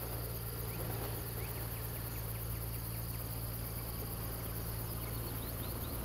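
A bird calling in quick runs of short high chirps, two runs, about a second and a half in and near the end, over a steady low hum.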